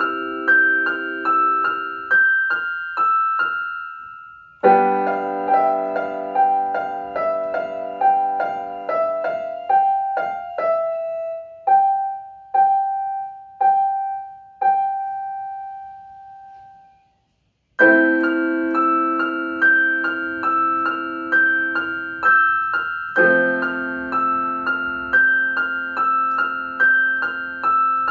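Solo piano improvisation: chords and quick repeated notes, thinning to single notes that fade away past the middle. After a brief silence the playing resumes with fuller chords.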